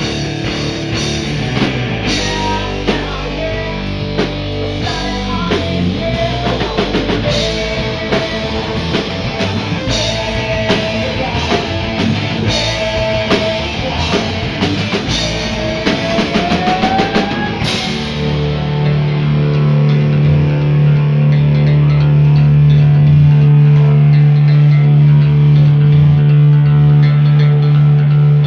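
Rock band playing live on drum kit, bass and electric guitars, with a lead guitar line on top that ends in a rising bend. About two-thirds of the way in the cymbals stop and a loud held low note rings on, swelling slightly.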